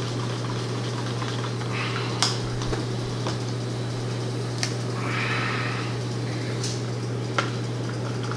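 Wooden stir stick scraping and ticking against a small plastic cup as mica pigment powder is stirred into epoxy resin: a few sharp ticks among short stretches of scraping, over a steady low hum.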